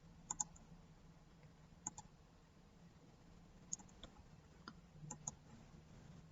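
Faint computer mouse clicks, about eight in all, some in quick pairs, over a low steady hum.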